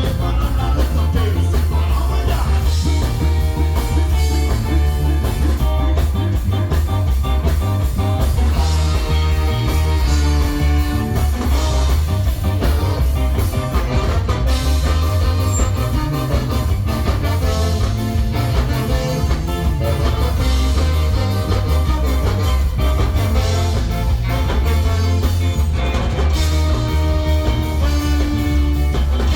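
Ska band playing live, with a strong, steady bass line under the rest of the band.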